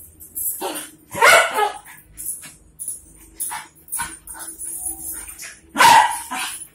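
Two dogs playing, with loud barking about a second in and again near the end, and light clicking and rattling of a metal chain in between.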